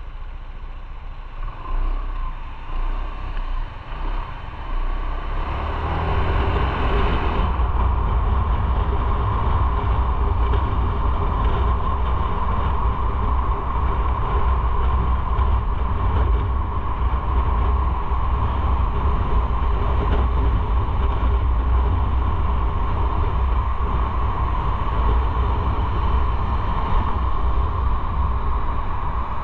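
Motorcycle running on the road with a steady low rumble. It is quieter for the first few seconds, then louder and steady from about six seconds in.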